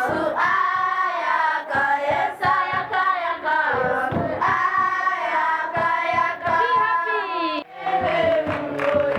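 A group of schoolchildren singing a hymn of praise together, holding long notes.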